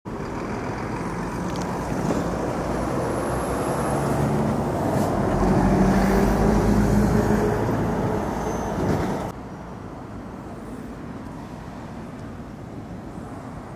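A motor engine running with a low, steady hum, swelling to its loudest about six seconds in, then cutting off abruptly about nine seconds in and leaving a quieter steady rush. A faint high whistle sounds about three seconds in.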